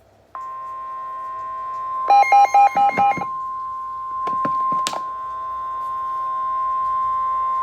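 NOAA Weather Radio's 1050 Hz warning alarm tone: a single steady electronic tone that comes on about a third of a second in, signalling that a warning broadcast is about to follow. About two seconds in, a quick run of about five loud electronic beeps sounds over it. A few sharp clicks follow a second or two later.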